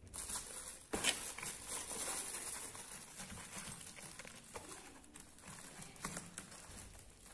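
A hand rummaging through small white plastic snap-fastener parts in a cardboard box: a continuous rustling rattle, with sharper clicks about a second in and again near six seconds.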